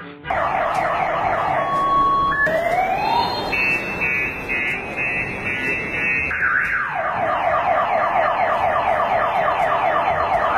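Car alarm siren cycling through its tones: a fast repeating sweeping chirp, a rising whoop about two and a half seconds in, a rapid high pulsing tone, then the fast repeating sweep again.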